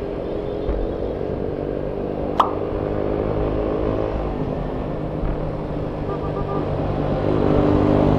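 Yamaha scooter engine running steadily under way in road traffic, swelling slightly near the end. A single sharp click about two and a half seconds in.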